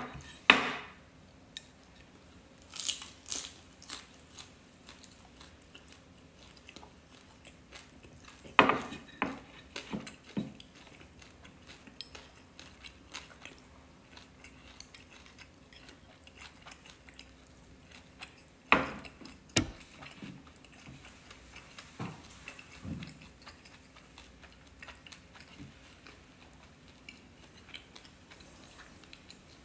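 Eating at a table: chopsticks and bowls clicking and knocking against ceramic dishes and a wooden tray, with quiet chewing in between. The knocks are scattered, and the loudest come in clusters about nine seconds in and again about nineteen seconds in.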